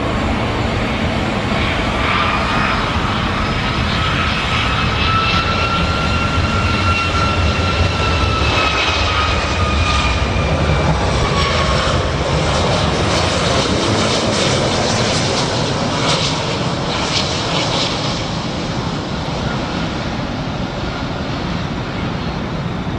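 Jet engines of an American Airlines Boeing 757 on final approach: a steady rumble with a high fan whine. The whine rises slightly in pitch, then falls as the plane passes, fading out about twelve seconds in.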